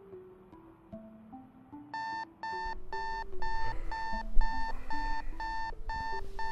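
Electronic alarm clock beeping in quick even pulses, about two beeps a second, starting about two seconds in, over light melodic background music.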